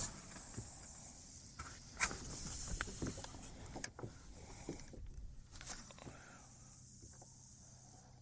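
Light handling noises on a fishing kayak: scattered soft clicks and knocks over a faint hiss, the sharpest about two seconds in and again near four seconds.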